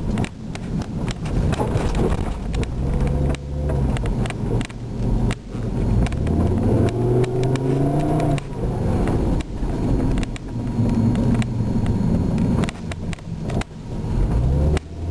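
Volvo car driving, its engine speed rising and falling, with many short knocks and rattles.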